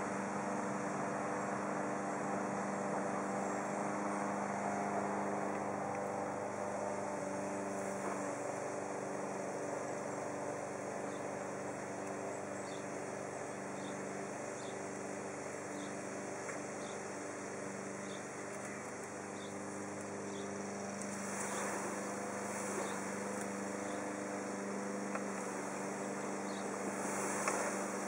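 A honeybee swarm buzzing: a steady, dense hum of many wingbeats. From about a third of the way in, faint high chirps repeat at a regular pace.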